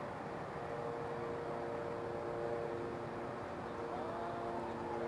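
Steady rumble of distant ships across open water, with several steady tones held for seconds from about half a second in, one of them wavering near the end.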